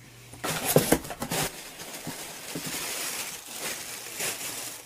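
Plastic air-cushion packing being pulled out of a cardboard shipping box, crinkling and rustling. The loudest crackles come in the first second and a half, then a softer rustle continues.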